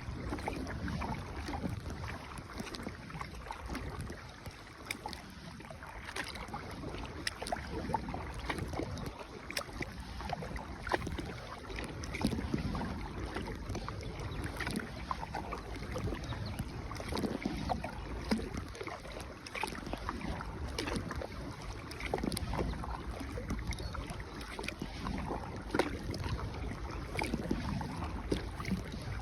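Water splashing and sloshing as a small boat is paddled, swelling every few seconds with the strokes, with scattered small knocks and some wind on the microphone.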